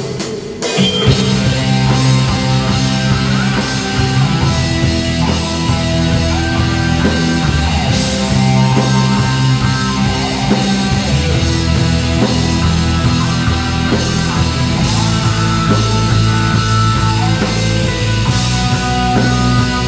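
Rock band playing live: electric bass, drum kit and electric guitar together, with the full band coming in about a second in.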